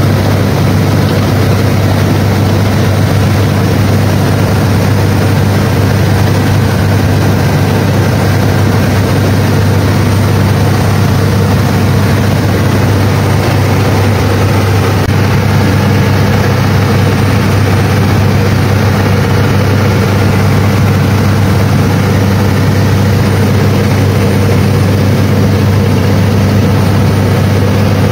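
Passenger speedboat's engine running steadily at speed, with the rush of water churned up in its wake.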